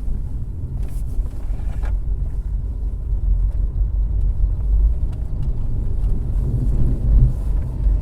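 Inside the cabin of a 2008 Subaru Outback on the move, a steady low rumbling grind from a badly worn front wheel bearing, swelling a little near the end.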